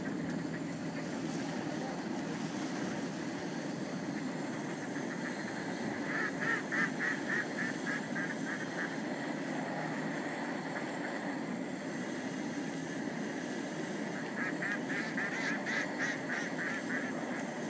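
Geese honking in two runs of rapid repeated calls, one a few seconds in and one near the end, over steady wind noise on the microphone.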